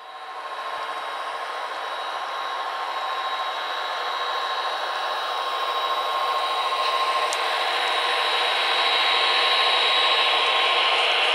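HO scale model train running past: the locomotive motors whirring with a thin steady whine and the wheels rolling over the rails as a rushing hiss. It grows steadily louder as the train comes closer.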